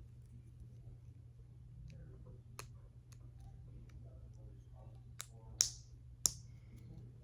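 Small plastic fidget toy pieces clicking as they are handled and fitted together: a few sparse, sharp clicks, the two loudest close together about two thirds of the way in.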